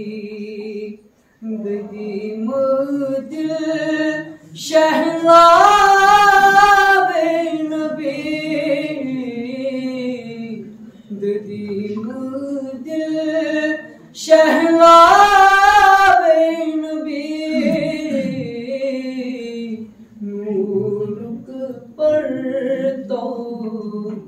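A young man singing a naat unaccompanied, one solo voice in long ornamented phrases, rising to two loud, long, wavering high phrases about five and fourteen seconds in.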